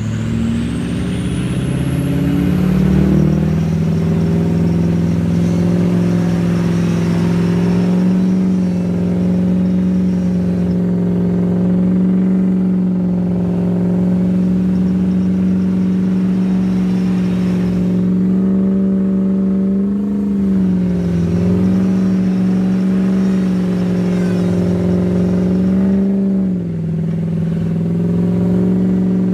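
Pickup truck engine revved up over the first few seconds and then held at steady high revs under heavy load, as a truck stuck in mud is pulled on a tow strap. The revs dip briefly twice late on.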